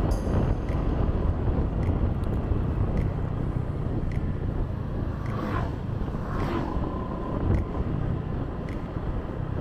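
Scooter ride heard from a chest-mounted camera: steady wind rumble on the microphone over the scooter's small engine running along at cruising speed.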